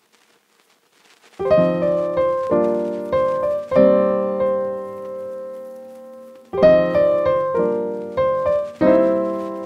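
Piano music starting about a second and a half in: groups of struck chords that ring out and fade, with a second phrase beginning past the middle.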